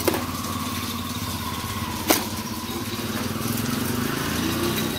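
A small engine idling steadily, rising a little in pitch near the end, with one sharp knock about two seconds in.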